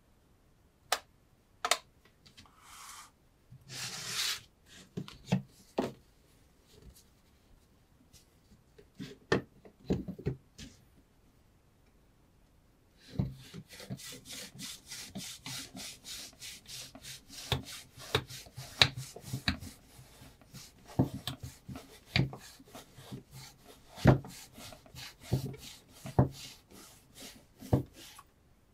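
Kitchen knife being worked by hand against a wooden test rig: scattered clicks and knocks at first, then from about halfway in a fast, even run of rubbing, scraping strokes, several a second, with sharper knocks among them.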